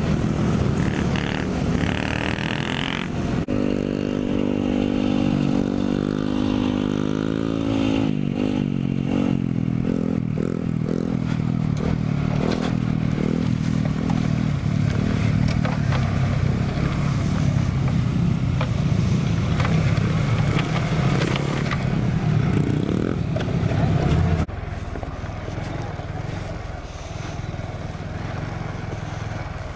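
Small mini motorcycle engines running and revving up and down while riding, with wind rush over the microphone. The sound jumps abruptly a few times, and is quieter for the last few seconds.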